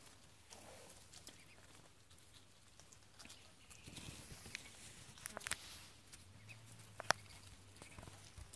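Faint pecking, nibbling and rustling as a Muscovy duck and her ducklings feed on leafy greens, with scattered soft clicks and one sharper click about seven seconds in.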